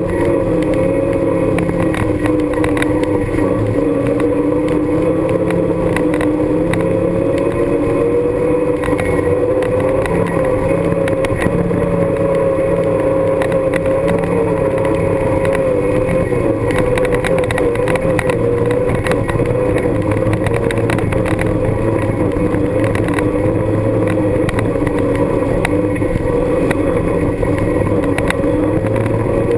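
Honda Pioneer 1000 side-by-side's parallel-twin engine running steadily while driving over a rocky dirt trail, its pitch drifting gently up and down with small throttle changes. Scattered light knocks and rattles come from the ride over rough ground.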